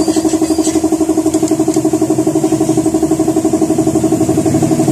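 A small engine running steadily with a fast, even pulsing beat and a strong steady hum.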